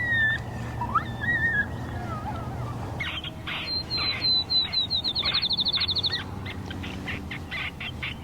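Songbirds singing: a few wavering whistled notes, then about three seconds in a high clear note repeated faster and faster until it runs into a quick trill. Short chirps are scattered around it.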